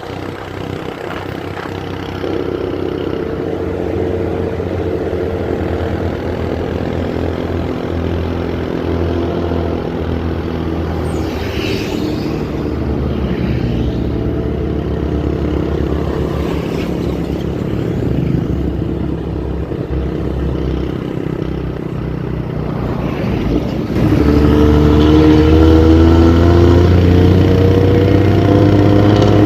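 Bus engine running through an aftermarket racing exhaust with a growling ('ngorok') note. Near the end it gets suddenly louder and its pitch climbs steadily as the bus accelerates.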